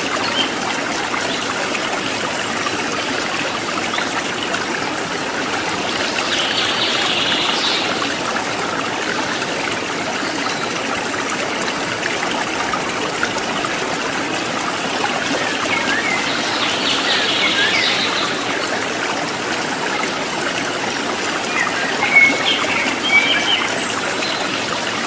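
A stream running steadily, with birds chirping in short spells three times.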